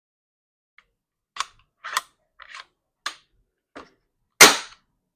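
Snowpeak Max 1 PCP air rifle being worked and checked by hand: a series of sharp mechanical clicks about every half second, then a much louder sharp crack a little over four seconds in.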